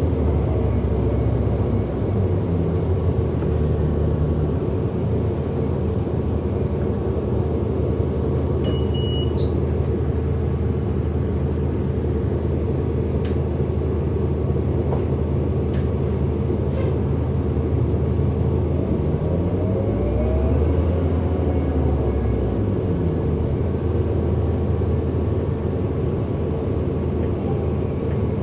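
A 2008 Orion NG diesel-electric hybrid bus driving, heard from inside: a steady low rumble with a constant hum. About two-thirds through, a motor whine rises in pitch, then falls again a few seconds later.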